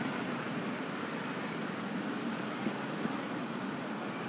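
Street traffic ambience: a steady wash of road noise with vehicle engines running nearby.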